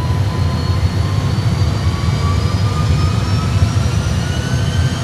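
Simulated Airbus A320 engines spooling up with the thrust levers set to 50% N1 for takeoff. A steady low rumble runs under a thin whine that rises slowly in pitch as the engines accelerate toward stable thrust.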